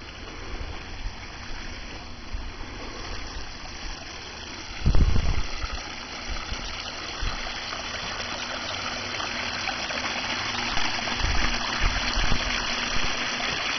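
Water splashing and trickling over the rocks of a small backyard stone waterfall and stream, getting louder as the flow comes closer. Low rumbles on the microphone about five seconds in and again near the end.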